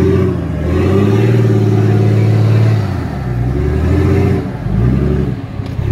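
Off-road 4x4's engine revving in repeated surges, the longest held about two seconds, falling back in between as the vehicle works through a rough off-road section.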